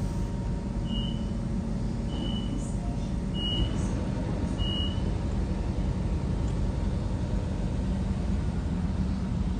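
Steady low rumble of railway station background noise, with four short high beeps at an even pace of about one a second in the first half.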